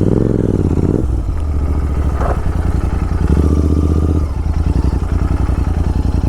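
Royal Enfield Continental GT 650's parallel-twin engine running through a Red Rooster aftermarket exhaust while riding. The throttle eases off about a second in and opens up again for about a second a little past the halfway point.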